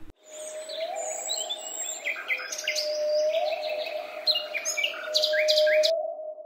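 Birds chirping and whistling in quick short notes over a steady held tone that rises briefly in pitch three times, on a faint even hiss, like a tropical forest ambience.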